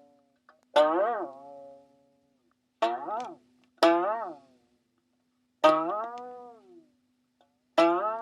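Cartoon 'boing' sound effects: a twangy plucked tone with a sharp start that bends up and then down in pitch and dies away. It repeats about five times, with a second or two of quiet between them.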